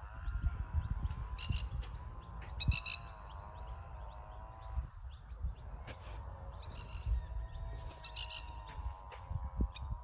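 Masked lapwings (plovers) giving short bursts of sharp, rattling alarm calls, four times, as they defend their nest by swooping. A faint wavering tone and a low rumble run underneath.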